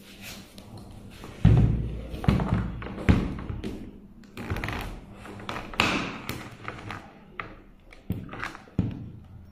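Hard plastic knocks and thuds from handling the black clamp ring and dome of a dome-type fiber optic splice closure as the ring is fitted over the dome. The deepest thud comes about one and a half seconds in, followed by a string of lighter, irregular knocks.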